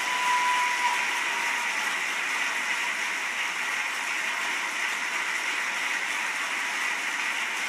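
Audience applause heard thinly through a laptop's speakers, a steady even patter of clapping with no bass, and a single held high note in the first second or so.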